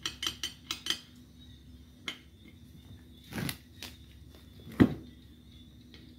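Hands working a tyre onto a cast motorcycle wheel rim: a quick run of light clicks and clinks in the first second, a short scrape a little past the middle, then one heavy knock as the wheel is set down on the concrete floor.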